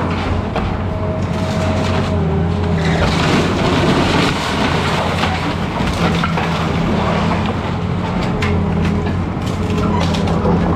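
An excavator's diesel engine runs steadily while the machine crushes and breaks apart a house's wooden framing, with repeated cracking and splintering of timber.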